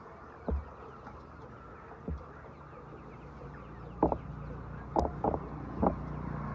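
Chickens clucking: a few single short, sharp clucks, then a quicker run of them from about four seconds in, over a steady low hum.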